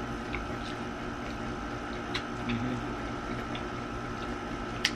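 Steady background hum with a faint steady whine, under soft scattered clicks and one sharper click near the end.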